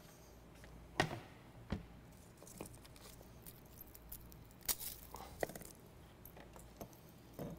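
A few light clicks and knocks spaced irregularly, the loudest about a second in, over a faint low hum: food and utensils being handled at a kitchen counter.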